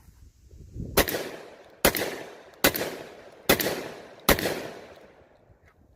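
Five shots in quick succession, a little under a second apart, from a 12-gauge Charles Daly Honcho pump-action shotgun, each with a short echoing tail.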